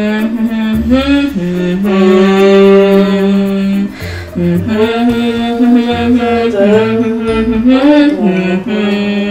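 A song playing as background music: a sung vocal holding long notes that slide between pitches, over a bass line.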